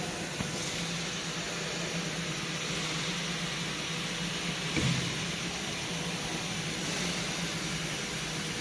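Water-cooled spindle CNC router running as it cuts aluminium: a steady, even hiss over a low hum, with a single short knock about five seconds in.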